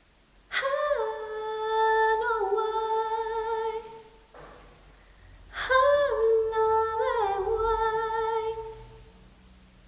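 A solo voice singing two long wordless phrases without accompaniment, each about three and a half seconds, holding a note with vibrato and stepping down in pitch partway through.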